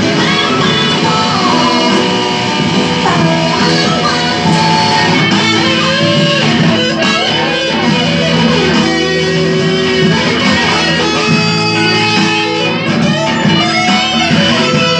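Electric guitar played continuously in a rock style, with bent notes sliding up and down in pitch over steady sustained low notes.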